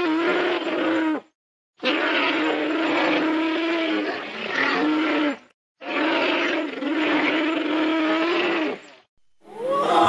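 Animal roar sound effect played three times, each a long call held at a steady pitch, with short silences between; a different, deeper roar with sliding pitch starts near the end.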